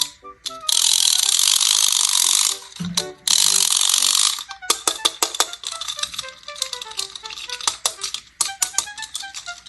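Two bursts of paper rustling and crinkling, each lasting about two seconds, then quick light clicks over a soft plucked tune of short, stepping notes.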